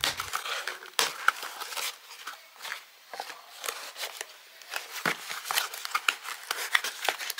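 Parcel packaging being handled and opened by hand: irregular crinkles, rustles and clicks, with a sharper click about a second in.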